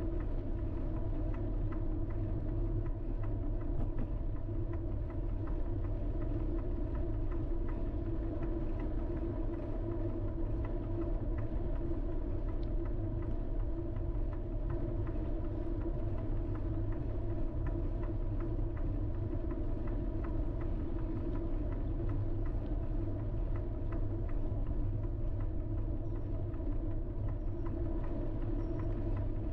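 A vehicle driven at a steady pace: an even, unchanging drone of engine and road noise with a strong low rumble.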